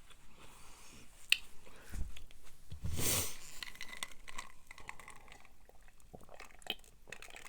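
Close-up chewing and mouth sounds of someone eating sloppy joe casserole: soft chewing with small wet clicks and smacks, one sharper click a little over a second in, and a louder rustling sound about three seconds in.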